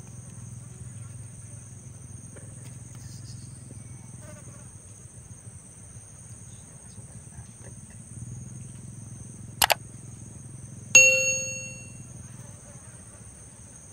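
Insects buzzing steadily at a high pitch. About eleven seconds in, a single metallic ding rings out and fades over about a second, just after a brief sharp click.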